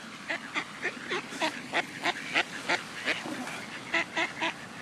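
Mallard ducks quacking: a rapid run of short quacks, about three a second, with a brief pause near the end.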